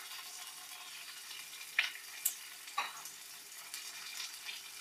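Hot oil sizzling in a frying pan as turmeric-marinated mackerel pieces are laid in to fry. Under the steady high hiss come three brief sharp sounds about two to three seconds in.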